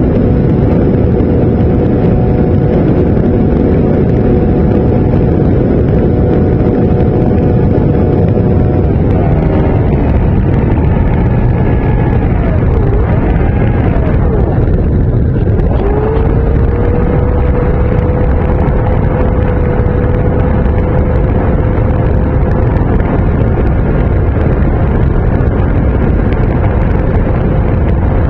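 RC model airplane's motor and propeller running in flight, picked up by the on-board camera under heavy wind rush. The motor's whine wavers up and down for several seconds about a third of the way in, then holds a steady pitch and begins to drop right at the end.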